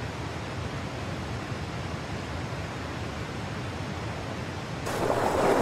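Steady rush of white water pouring over river rapids and falls. Near the end it switches abruptly to a louder, brighter rush.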